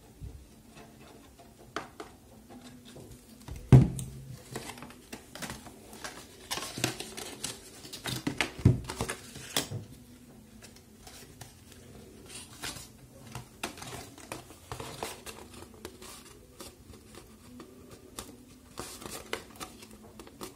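Cardstock being handled, folded and pressed together on a tabletop: paper rustling and scraping with scattered small taps, and two louder knocks about four and nine seconds in.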